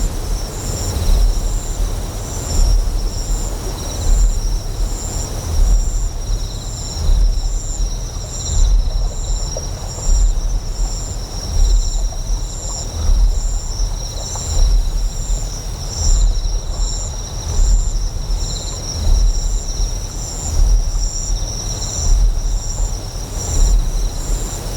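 A deep generator hum that swells in a slow pulse about every second and a half. Over it, insects chirp in high, steady, rapid pulses, and flowing water hisses.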